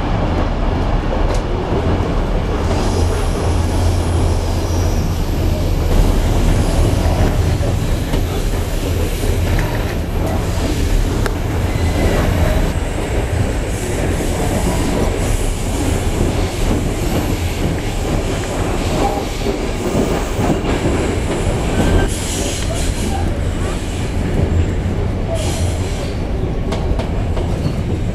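Passenger train running along the track, heard from inside the coach: a steady low hum and rolling wheel noise, with a faint high-pitched squeal of wheels on the rail coming and going as the train takes curves.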